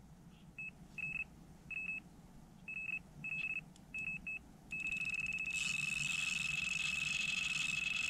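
Electronic carp bite alarm bleeping in short, irregular bursts, then sounding without a break from about five seconds in: a fish taking line on a run. A steady hiss joins it shortly after the continuous tone starts.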